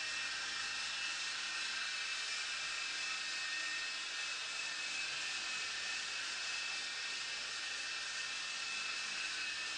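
MJX T05 coaxial RC toy helicopter in flight: a steady high whine from its small electric motors over the rushing hiss of its rotors.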